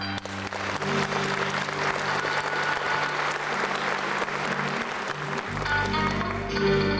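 Audience applauding over plucked-string dance music. The applause dies away about five and a half seconds in as the music comes back up.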